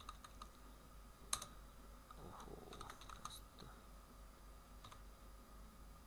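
Faint, scattered computer keyboard keystrokes as a few keys are typed and backspaced, with one sharper key click about a second in and a short run of taps around the middle.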